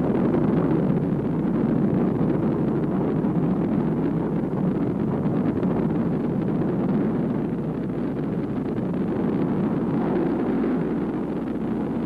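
A large rocket's engines running at liftoff: a loud, steady rumble of exhaust noise with no break.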